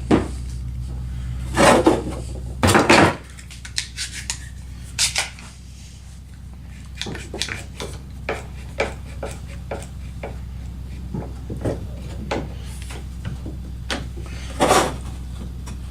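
Wooden parts being handled and fitted together: a few loud knocks and clatters with small clicks and rubbing between them, over a steady low hum.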